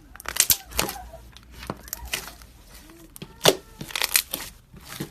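Slime being squished and pulled apart, giving irregular bursts of sticky crackling and small popping sounds.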